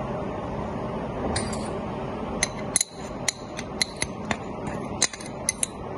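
A spoon tapping and clinking against a glass blender jar while milk powder is knocked into it. About a dozen light, irregular clinks with a faint glassy ring start about a second and a half in.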